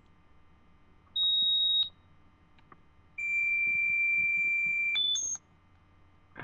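Pure electronic tones from a dog whistle app played through a handheld device's small speaker. A short high tone sounds about a second in. About three seconds in a longer, lower tone starts, then jumps up in pitch twice in quick steps and cuts off.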